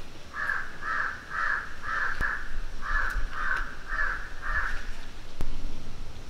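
A crow cawing in a steady series, about nine harsh caws at roughly two a second, then stopping; a sharp knock follows near the end.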